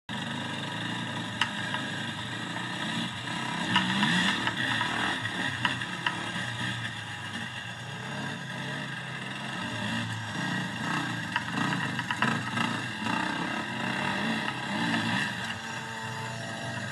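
Dirt bike engine running and revving unevenly as it is ridden over a bush trail, with a few sharp clicks along the way. It sounds thin, as if played back through a screen's small speaker.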